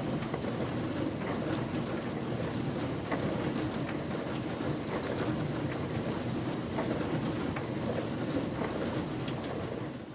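An older model dishwasher running, giving a steady low wash of water spraying and sloshing inside, with a few faint ticks.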